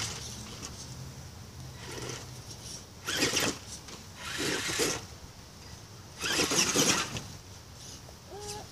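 Axial Wraith Spawn RC rock crawler's electric motor and geared drivetrain whirring in three short throttle bursts as it climbs over logs, about three, four and a half, and six and a half seconds in.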